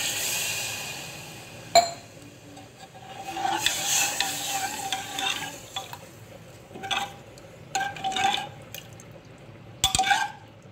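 Water poured into a pressure cooker with a hiss that fades over the first second and a half, then a steel ladle stirring the dal, rice and water, scraping and clinking against the metal pot in several short bouts.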